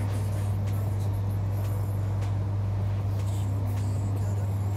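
A steady low hum, with a few light knocks and taps as kitchen items are taken out of a wall cabinet and handled.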